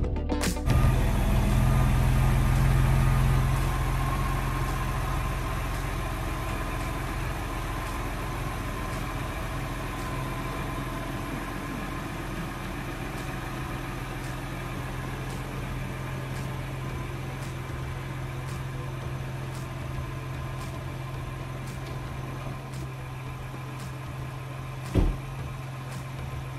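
2022 Ford Bronco Wildtrak's 2.7-litre twin-turbo V6 idling steadily, a little louder for the first few seconds before settling to an even hum. A single sharp knock near the end.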